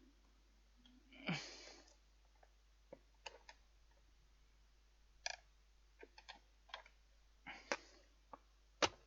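Scattered sharp clicks and knocks as the fan heater's casing and lid are handled and pressed back together, with a short rustle about a second in.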